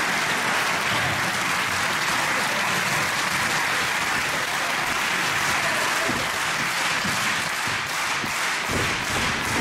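Arena audience applauding steadily. Near the end, separate sharp taps stand out from the clapping.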